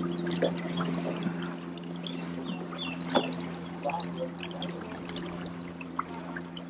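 River water trickling and gurgling against a boat, over a steady low hum. A sharp tick about three seconds in.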